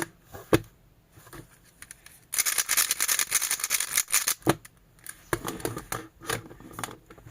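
Plastic clicking and clacking of a 3x3 Rubik's cube being turned by hand. There are a few scattered turns, then a dense flurry of fast turns about two seconds in, then more bursts of turns.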